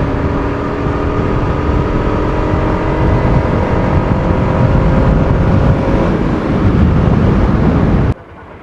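Bajaj Pulsar RS200's single-cylinder engine running while the bike is ridden, under a heavy low rumble of wind and road noise. The engine note creeps slowly up in pitch as it pulls. The sound cuts off abruptly near the end.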